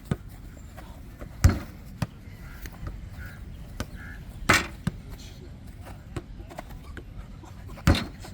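A football struck by feet and bouncing on a table in a table-jokgu rally: sharp thumps, three loud ones about three seconds apart with lighter taps between.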